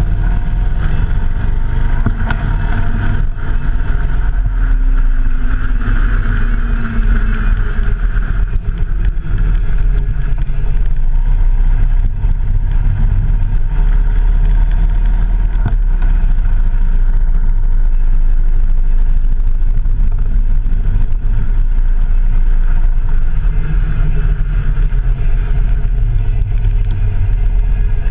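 Vehicle in motion on a test ride, heard from a handlebar-mounted action camera: a heavy, steady wind rumble on the microphone over the running engine and road noise, with the engine note shifting up and down a little.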